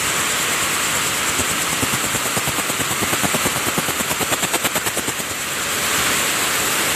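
Weaving looms running in a mill's weaving shed: a loud, steady mechanical din with hiss. From about a second in, the fast, even clatter of one loom's weaving stroke rises above the din, then fades again after about five seconds.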